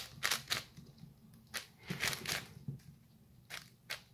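Angstrom WuQue M 4x4 magnetic speedcube being turned by hand in a solve: irregular runs of quick plastic clicks and clacks as the layers snap around. The cube is new and not yet broken in.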